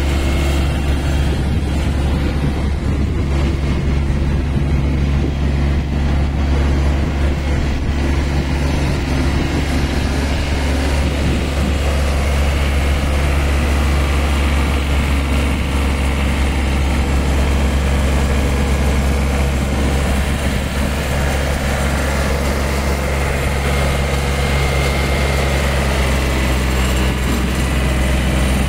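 Kubota Aste A-13 compact tractor's diesel engine running at a steady, even note while the tractor is driven slowly.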